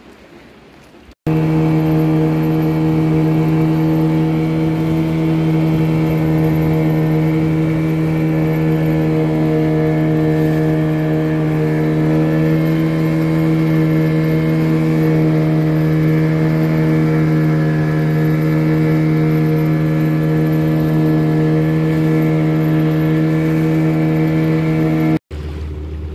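Boat's outboard motor running at a steady speed: a loud, even engine hum at one fixed pitch. It cuts in about a second in and cuts off shortly before the end.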